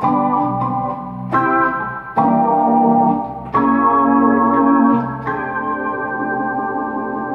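Electronic keyboard played with a sustained, organ-like voice: a run of five held chords, the last one held for about two seconds.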